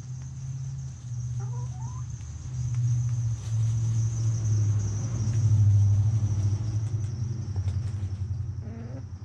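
Hens clucking close by: a low, pulsing run of clucks that swells to its loudest in the middle, with two short higher calls about a second and a half in and near the end.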